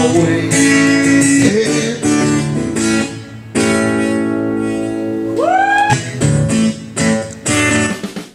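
Acoustic guitar strummed live by a street musician, chord after chord, with one note sliding up and held about five seconds in.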